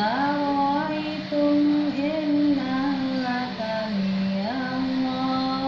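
A high voice singing a slow melody in long held notes that step up and down, over a steady low hum.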